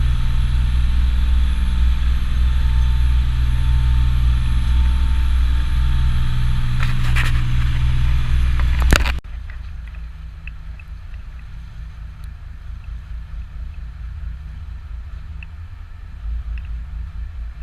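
Charter boat's engine running with a steady low drone; it drops away abruptly about nine seconds in, leaving a quieter low rumble with a few faint ticks.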